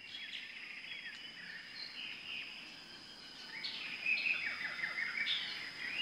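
Small birds chirping and calling, many short sweeping notes overlapping, over a steady high-pitched tone.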